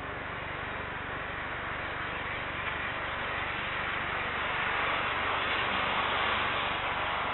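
Airbus A320neo's twin turbofan engines heard from a distance as the airliner rolls along the runway or taxiway: a steady rushing jet noise that swells a little past the middle.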